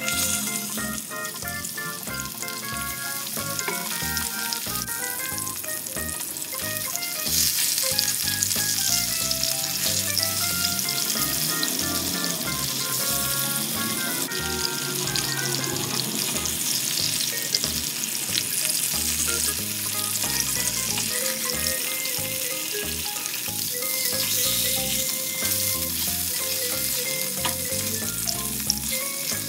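Mackerel fillets shallow-frying in hot oil in a pan, a steady sizzle that grows louder after about seven seconds and holds there. Light background music plays underneath.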